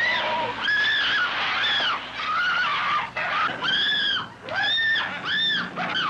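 A woman screaming over and over: a string of very high, shrill shrieks that rise and fall, each under a second long.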